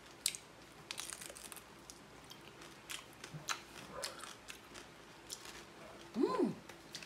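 Crispy cochinillo (roast suckling pig) skin crunching as it is bitten and chewed: scattered, irregular crackles. A short hummed voice sound rises and falls in pitch near the end.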